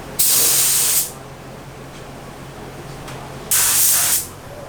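Compressed-air paint spray gun triggered twice, each a hiss just under a second long that starts and stops sharply, about three seconds apart, as paint goes onto a car body.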